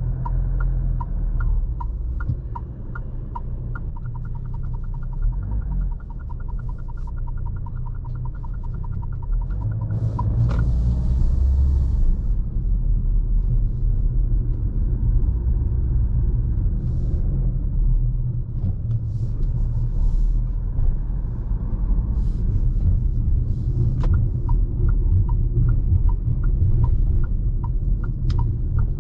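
Steady low rumble of the Fiat Toro's 2.0 turbodiesel engine and tyres heard inside the cabin while driving, growing louder about ten seconds in. Over it, a regular ticking of the turn-signal indicator runs through the first third and starts again near the end.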